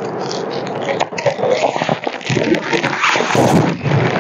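Clear plastic packaging crinkling and rustling irregularly as a packed suit set is pulled open and handled, louder in the second half.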